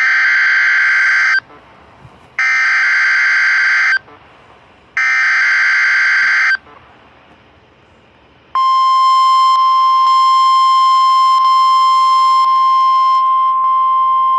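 Emergency Alert System SAME header: three harsh, buzzing digital data bursts of about a second and a half each, a second apart. A little over halfway through, the steady 1050 Hz NOAA Weather Radio warning alarm tone begins, which marks the start of a new weather warning.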